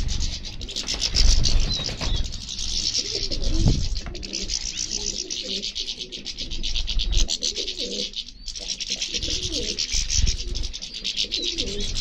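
Doves cooing over and over, low rounded calls, above a steady, fast-pulsing high chirring. A short flurry of wingbeats near the start.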